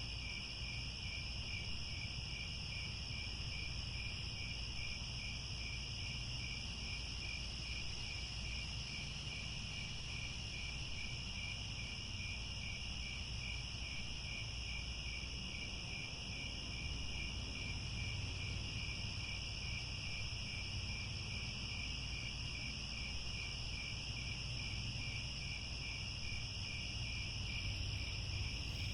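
A chorus of crickets chirping continuously: a steady high trill layered with a regular pulsing chirp, over a low background rumble.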